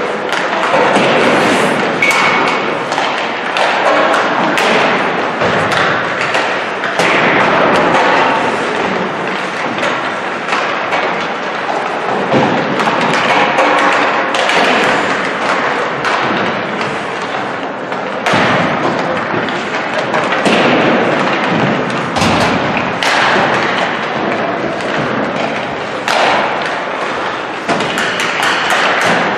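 Ice hockey warmup: a running series of knocks and thuds as pucks are slapped by sticks and bang off the boards and net, many strikes at irregular intervals.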